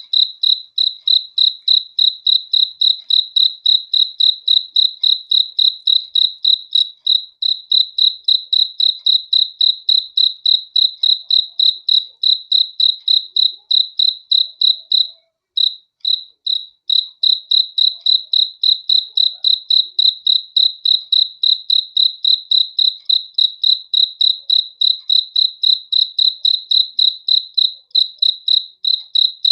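A cricket chirping at one high, steady pitch in an even rhythm of about three chirps a second, with a short break about halfway through.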